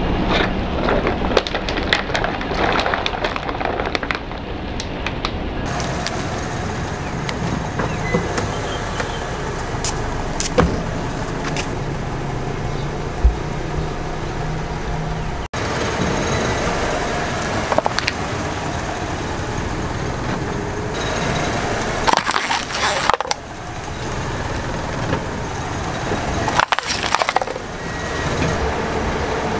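Car tyres rolling over and crushing plastic cups of liquid and a plastic drink bottle: sharp crackles and pops of breaking plastic over steady tyre and car noise, in several separate takes that cut in and out abruptly.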